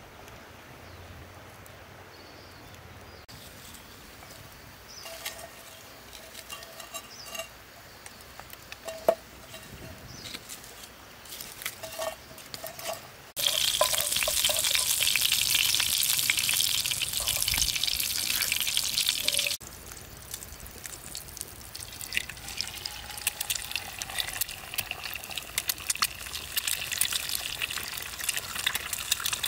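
Cooking oil sizzling and crackling in a frying pan over a wood campfire, after a quieter stretch of small clicks and knocks. The sizzle starts suddenly and loud about a third of the way in, cuts back abruptly a few seconds later to a softer, crackling sizzle as an egg fries in the pan.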